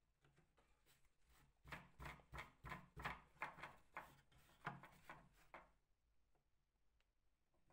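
Faint run of about a dozen quick rubbing or scraping strokes, about three a second, from hand work on wood. They start about a second and a half in and stop a couple of seconds before the end.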